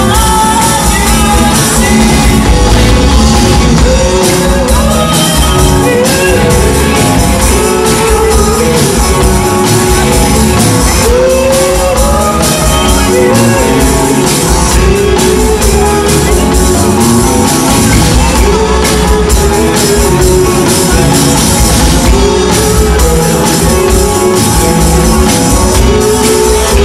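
Live rock band playing loudly: electric guitars, bass guitar and drum kit, with a melodic lead line bending up and down in pitch over them.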